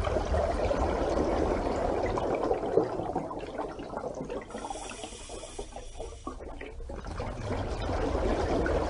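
Rushing water sound effect: a dense, noisy wash of water, fuller at the start, thinning in the middle and swelling again near the end.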